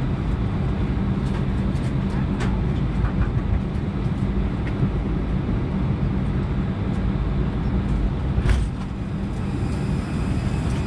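Steady low drone inside the cabin of an Airbus A319 on the ground after landing, with a few sharp clicks and a louder knock about eight and a half seconds in, after which the drone eases slightly.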